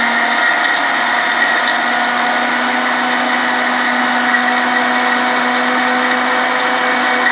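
Panasonic juicer-blender's motor running at a steady speed with a loud, even whine, grinding green chillies, garlic and ginger with a little water into a paste.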